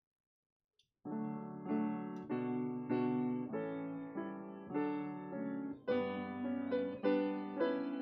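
Piano music begins about a second in after a brief silence: a slow run of chords and melody notes, each struck and left to ring.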